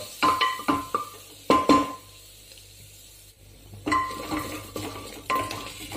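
A spatula scrapes and knocks against a metal pot while stirring onions frying in oil. Several strokes leave a short metallic ring, and there is a pause of a second or two in the middle.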